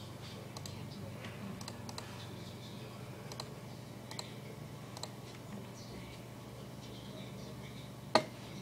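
Scattered clicks from someone working a computer's keys and mouse, with one much louder click near the end, over a steady low hum.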